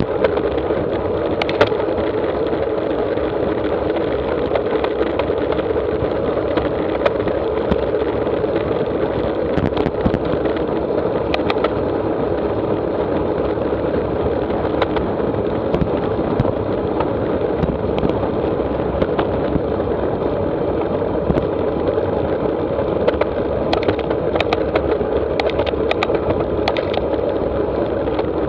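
Steady wind rush and road-tyre noise on a handlebar-mounted camera of a road bike travelling at about 30 mph, with scattered faint ticks.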